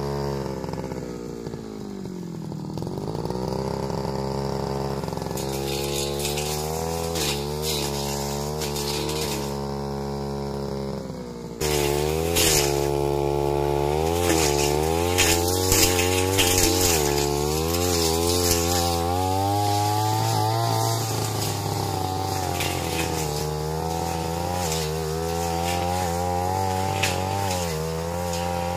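Backpack brush cutter engine running hard, its pitch sagging about two seconds in and then rising and falling again and again as the throttle is worked. The spinning blade slashes and swishes through dense ferns and brush, and the sound gets louder a little before halfway.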